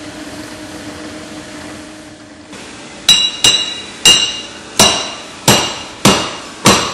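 A grinding wheel spinning with a steady hum, then seven sharp hammer blows on metal clamped in a bench vise, each one ringing, about one every two-thirds of a second.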